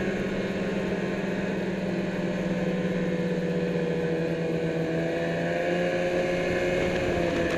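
Snowmobile engine running steadily while the sled travels over snow, its pitch rising a little partway through.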